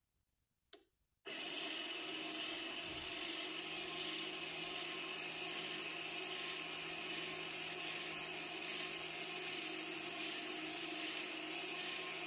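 Audi Q5 rear caliper electronic parking brake motor, run straight off a 12-volt battery, whirring steadily as it drives the brake caliper piston out. A brief click about a second in, then the motor starts and runs at an even pitch.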